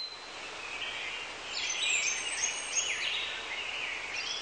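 Forest ambience: several overlapping high-pitched bird calls, some sliding down in pitch, over a steady hiss, growing busier about a second and a half in.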